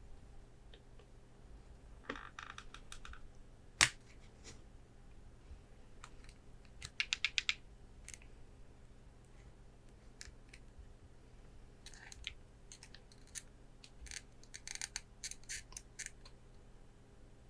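Gloved hands tapping on and handling Pokémon promo cards and plastic card frames: scattered small clicks, one sharp click about four seconds in, and a quick run of about six taps around seven seconds in.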